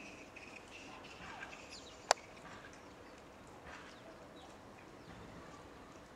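Faint scattered chirps of small birds over quiet room noise, broken about two seconds in by a single sharp click, the loudest sound.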